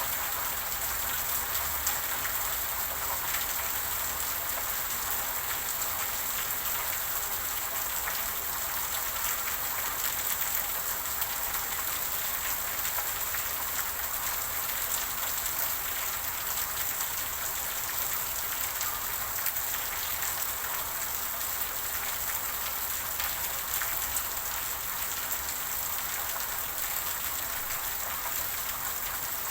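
Steady rain falling, with the dense patter of many drops on a surface.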